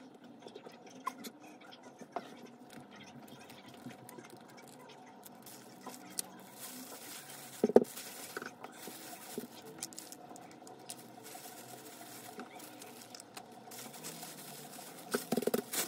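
Disposable plastic glove rustling and scratching as seasoning powder is sprinkled and rubbed onto cooked sweet corn cobs, with scattered light clicks and knocks of the cobs against the plate. There is a sharper knock about halfway through.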